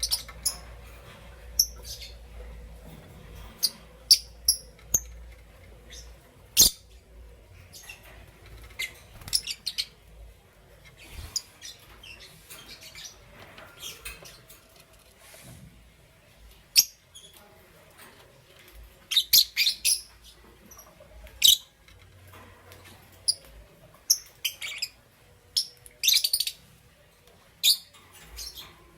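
Rosy-faced lovebirds chirping: short, sharp, high-pitched chirps at irregular intervals, with a few quick runs of rapid chirps.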